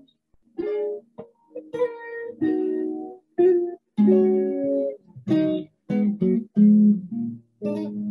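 A guitar played live over a video call: a run of plucked notes and chords, one after another, each ringing briefly before a short gap.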